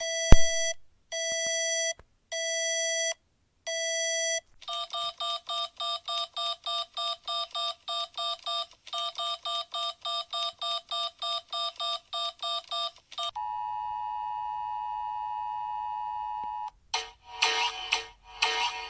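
Emergency Alert System style alarm sequence. It opens with four long electronic beeps, then rapid beeping at about three a second, then a steady two-tone attention signal for about three seconds. Several loud, harsh buzzing bursts follow near the end.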